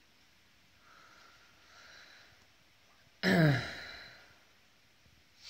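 A man's loud voiced sigh about three seconds in, falling in pitch and trailing off, after a couple of faint breaths.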